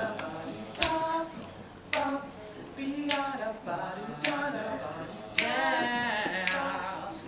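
A group of teenage boys singing boy-band pop a cappella in harmony, with a sharp percussive click keeping the beat about once a second.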